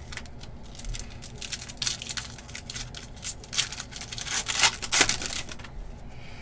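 Foil wrapper of a football trading-card pack being torn open and peeled apart: a run of irregular crinkling and tearing crackles, loudest about four to five seconds in.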